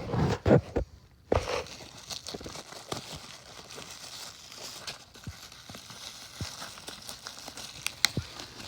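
Packaging crinkling and rustling as a newly unboxed weather radio and its papers are handled, with scattered small clicks; the handling is loudest in the first second and a half.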